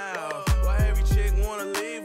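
Hip hop backing music: heavy bass notes that slide down in pitch, hi-hat ticks and a vocal line over the beat.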